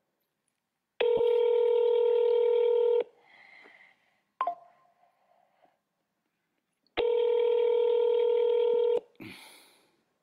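Ringback tone of an outgoing phone call, ringing twice. Each ring is a steady two-second tone, about four seconds apart, while the called police station has not yet answered.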